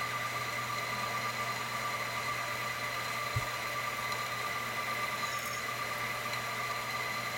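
Drill press running steadily with a whine, its quarter-inch bit cutting into a steel plate. A single short knock about three and a half seconds in.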